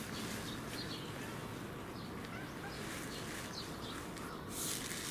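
Steady outdoor background noise with faint, scattered bird calls, and a brief hiss near the end.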